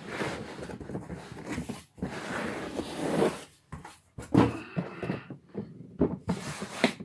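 Rustling and scraping as a power tool's box is handled and opened, with a few sharp clicks in the second half.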